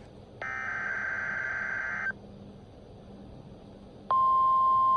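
NOAA Weather Radio EAS alert tones: a SAME header data burst of just under two seconds, a pause of about two seconds, then the steady 1050 Hz warning alarm tone starting about four seconds in. These are the tones that open a new severe thunderstorm warning broadcast.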